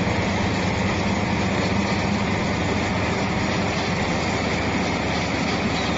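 Mealworm separating machine running: its motor and shaking sieve screens give a steady mechanical hum and rattle.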